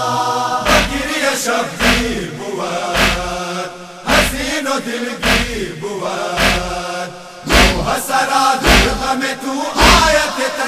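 A chorus of men's voices chanting a sustained melody of a Shia noha lament, over a steady beat of matam: hands striking chests in unison, a thud about once a second.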